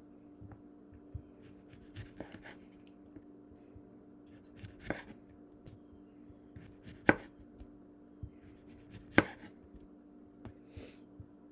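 Chef's knife slicing a cucumber into rounds, each stroke ending in a sharp knock on the wooden cutting board, about one every two seconds, with softer cutting ticks in between.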